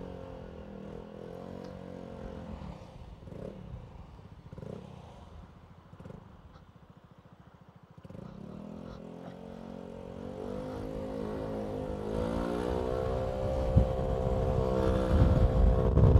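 Motorcycle engine ticking over quietly, then pulling away about eight seconds in. Its note rises, dips at a gear change and rises again, growing louder, with wind rumbling on the microphone near the end.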